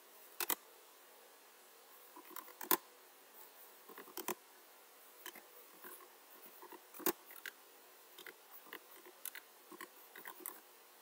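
Typing on a computer keyboard: scattered, irregular key clicks, a few sharper ones standing out about half a second in, near 3 s and near 7 s.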